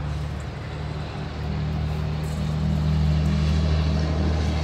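A truck's diesel engine running with a steady low hum, growing louder about a second and a half in.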